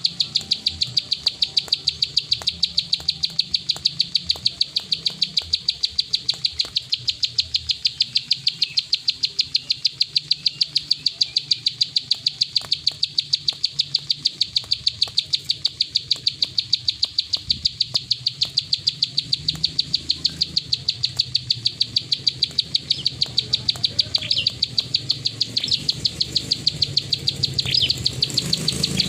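Plain prinia (prenjak sawah) giving its 'klik' call: a long, steady run of short, sharp, high notes, evenly spaced at about three to four a second. A few different chirps join in near the end.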